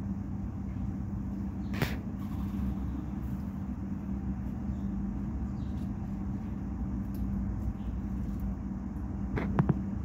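Steady low background rumble with a constant hum running under it, with a single sharp click about two seconds in and a quick cluster of clicks near the end.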